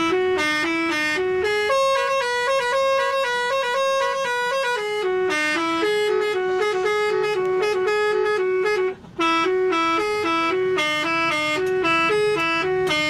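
Bus telolet horn, a set of air horns playing a fast stepping melody of several notes a second, with a brief break about nine seconds in.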